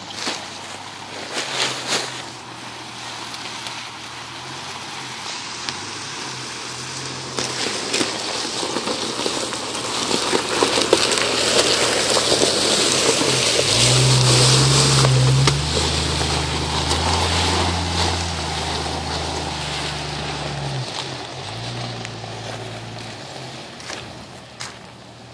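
Jeep Cherokee XJ engine running as it drives over a gravel creek bed, with tyre noise on the gravel. It grows louder as it passes close by about halfway through, then fades as it drives away.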